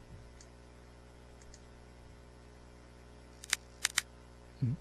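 Computer mouse clicking: a few sharp clicks about three and a half to four seconds in, followed by a short low thud just before the end.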